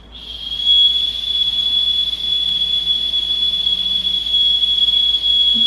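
Chupa Chups Melody Pops whistle lollipop blown in one long, steady, high-pitched whistle.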